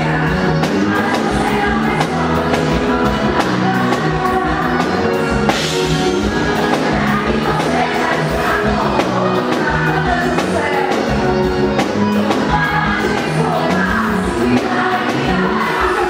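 Live band playing over a steady beat with a singer singing through the stage sound system.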